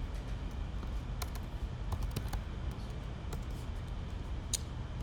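Typing on a computer keyboard: a scatter of short, irregular key clicks, the loudest near the end, over a steady low background rumble.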